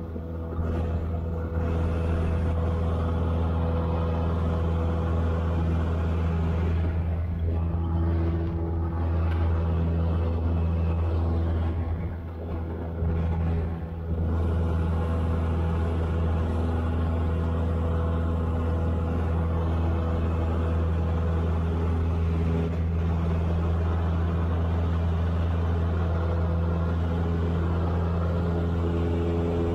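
Cessna 172's engine and propeller droning steadily, heard inside the cabin, with a brief dip in loudness about twelve to fourteen seconds in.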